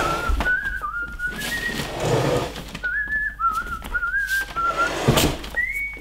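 A whistled tune of short notes that step up and down and glide between them, with rustling of shopping bags twice.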